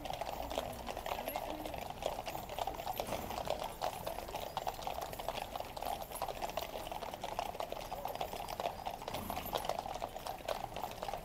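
Shod hooves of several cavalry horses clip-clopping on the road, a steady stream of overlapping clicks.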